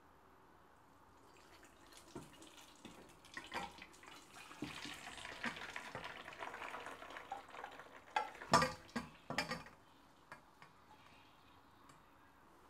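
Cooked linguine and its hot water poured from a saucepan into an enamel colander, the water splashing and gushing through into the pot below. A few sharp knocks come about two-thirds of the way through, then the pouring stops.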